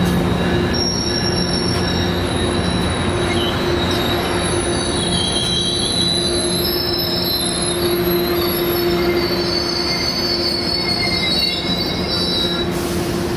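Metrolink bilevel passenger cars rolling past, steel wheels squealing on the rails: a steady rumble with thin, wavering high-pitched squeals throughout.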